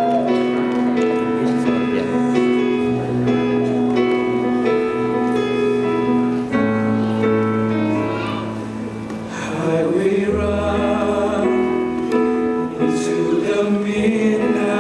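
Choral music: voices holding sustained chords over a low bass line.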